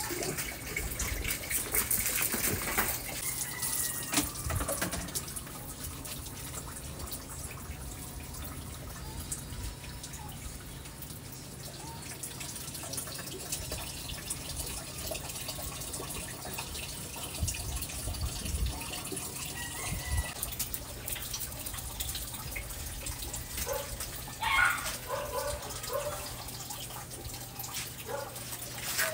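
Water running from a tap and splashing while a dog is bathed, louder in the first few seconds, with a brief sharper sound near the end.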